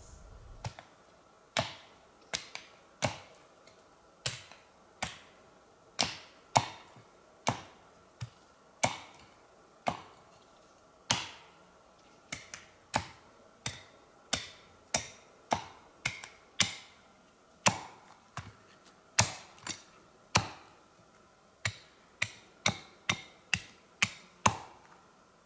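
A hand tool striking wood over and over, about forty sharp strikes spaced irregularly at roughly one or two a second, some in quick pairs, each dying away quickly.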